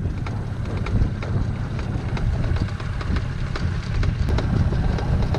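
Wind buffeting the microphone: a steady low rumble, with a few faint light ticks over it.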